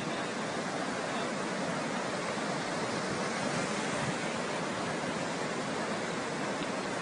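Floodwater rushing steadily: an even, unbroken roar of fast-moving water.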